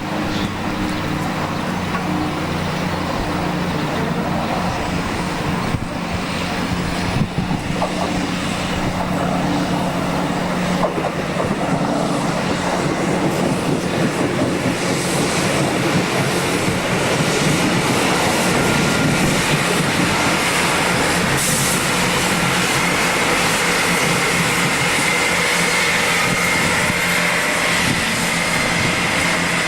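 Thames Trains Class 166 diesel multiple unit passing: the steady hum of its diesel engines under a building rumble of wheels on track, with a few sharp knocks in the first third. A high, steady whine joins in about two thirds of the way through.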